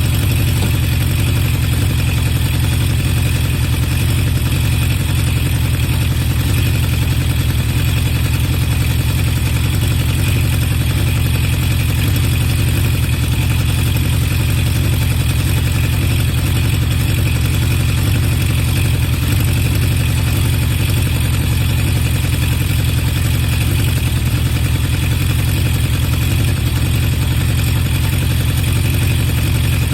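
Honda CB750 Four K3's air-cooled inline-four idling steadily, heard through baffle-modified HM341 mufflers. The carburettor sneeze has been largely cured by lowering the high float level in the #3 carburettor and sealing an intake insulator air leak.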